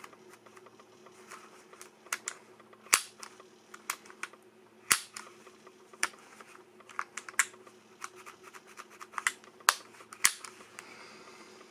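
Sharp mechanical clicks from a Tokyo Marui spring-powered airsoft CZ75 being handled and its controls worked by hand. A handful of louder clicks come a second or two apart among fainter ticks.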